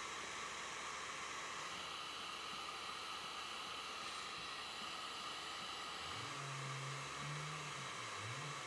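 Steady, even hiss of background noise, with a faint low wavering tone coming in about six seconds in.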